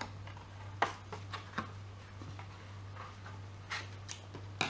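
Small scissors twisted and snipping in a hole pierced through a folded card to widen it: a few scattered sharp clicks and card crackles, the loudest near the end, over a steady low hum.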